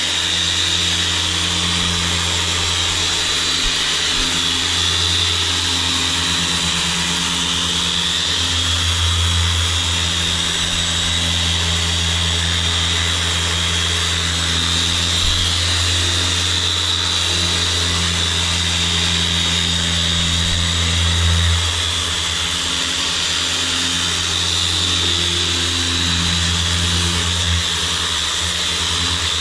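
Electric machine polisher running steadily while buffing polish into a jet ski's hull: a motor hum with a high whir, with small shifts in the motor note as the pad is worked over the surface.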